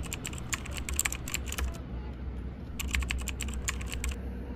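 Keyboard typing sound effect: two runs of quick clicks with a short pause between them, over a low steady rumble.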